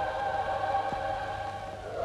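Church music on an old film soundtrack: a long held chord that fades slightly near the end, with a faint click about a second in.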